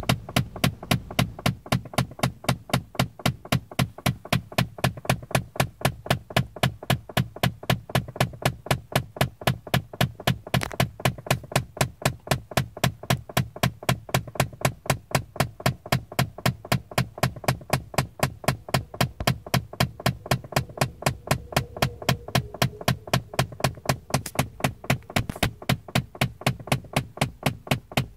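Rapid, evenly spaced clicking or knocking, about three to four sharp clicks a second, keeping a steady pace throughout: an unidentified mystery noise in a Chrysler 300.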